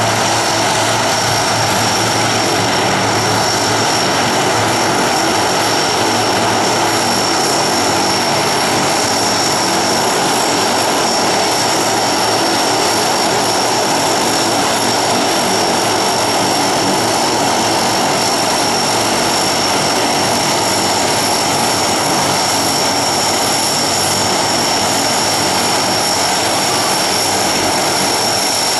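Aircraft engines running steadily close by: a constant loud rush with a steady high-pitched whine over it, not rising or falling.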